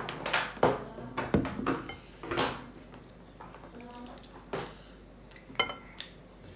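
Small plastic spoon and fork clicking and scraping against toddlers' bowls, an uneven clatter of light knocks. The knocks are busiest in the first two and a half seconds, with a few more later and one sharp ringing clink near the end.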